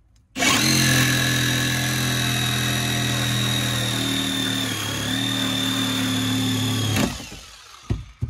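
Handheld power tool running steadily as it cuts off a car seat's headrest, its pitch dipping briefly under load a little past halfway before it stops abruptly about seven seconds in.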